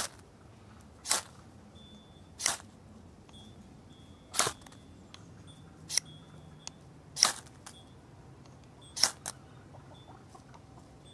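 Knife spine scraped down a ferrocerium rod (fire steel) again and again to throw sparks onto tinder: about seven short, sharp scrapes, one every second or two.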